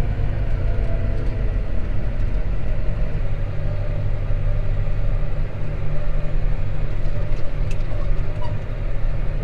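Tractor engine running steadily while driving along the road, a constant low drone.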